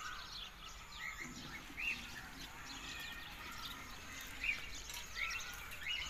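Birds chirping in short, scattered calls over a low outdoor background hiss.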